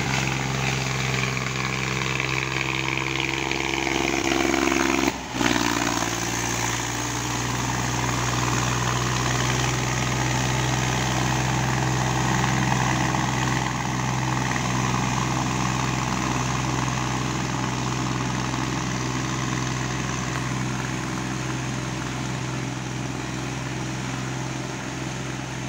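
Tractor engine running steadily while the tractor puddles a flooded paddy field on cage wheels. There is a brief break in the sound about five seconds in.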